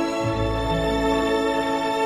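Slow background music with held, sustained notes and a change of chord a moment after the start.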